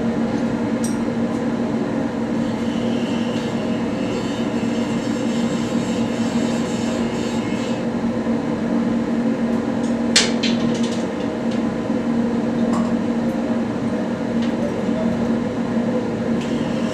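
Steady machinery drone with a constant low hum, with a single sharp metallic click about ten seconds in.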